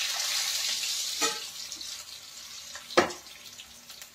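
Food sizzling in a pan. The sizzle is strongest for the first second or so and then dies down, with a light knock about a second in and a sharp click about three seconds in.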